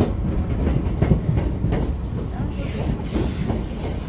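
Hankyu commuter train running on the Minoo Line, its wheels clacking over rail joints over a low rumble. A high hiss joins about two and a half seconds in as the train nears its terminus at Ishibashi Handai-mae.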